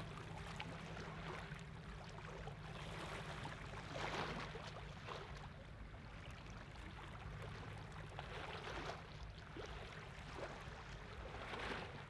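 Faint harbour ambience between ship horn blasts: a low rumble of ship engines on the fjord, with a steady low hum that fades out about five seconds in, and soft swishes of water lapping about four and nine seconds in and near the end.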